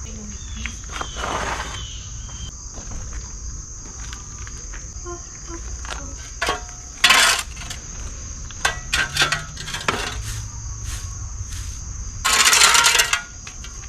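A steady high-pitched insect chorus, like crickets, with scattered sharp clinks and clatters of things being handled. The loudest is a rattle lasting about a second near the end.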